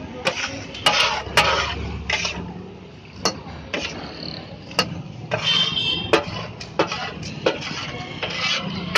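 A steel dish scraping thick bhaji across a large flat metal tawa griddle and knocking against the griddle and the rim of a steel pot. It comes as a string of sharp metallic clicks and knocks between rough scrapes.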